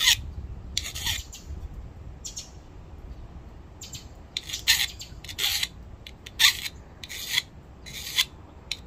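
Steel hand file rasping across the corner of a small open-end wrench in about ten separate short strokes, roughly one a second. The vinegar-cleaned file is biting into the metal and cutting.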